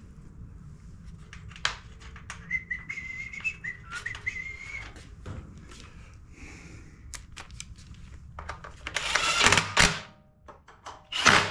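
Small nuts and a socket clicking as they are handled, with a few seconds of tuneless whistling. Near the end a cordless drill/driver spins briefly twice, running the recoil starter's nuts down onto their studs.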